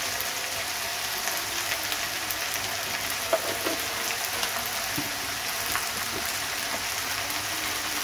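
Chopped okra sizzling as it fries in a wok over a wood fire: a steady hiss with a few small pops.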